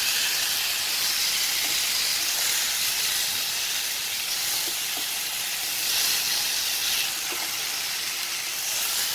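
Marinated whole chicken sizzling and steaming in a hot pan over high heat, with no added oil: a steady frying hiss. It swells a few times as the chicken is turned over onto another side.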